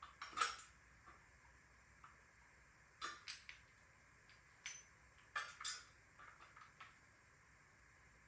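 Scattered metallic clicks and clinks of hand tools and small bicycle parts being handled during disassembly, a few sharp strikes about three and five seconds in, one with a brief ring.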